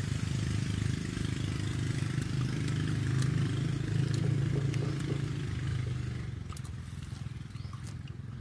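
A steady low engine rumble that grows a little louder near the middle and fades about six seconds in, with a few faint sharp clicks over it.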